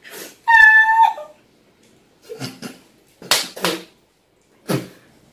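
A woman's laughter: a high-pitched squeal about half a second in, then three short, breathy bursts of laughter held back behind her hand.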